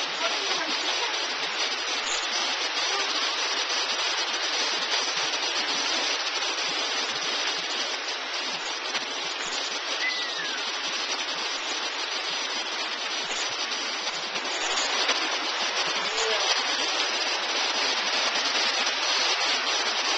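Heavy rain mixed with hail falling on the street and parked cars: a dense, steady hiss that gets louder about fifteen seconds in.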